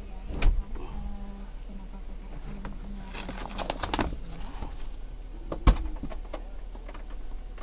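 Clunks, clicks and knocks of a Daihatsu Gran Max's front seat being handled and tipped up to open the engine compartment beneath it. There is a knock about half a second in, a run of clicks around three to four seconds, and a single sharp clack, the loudest, near six seconds.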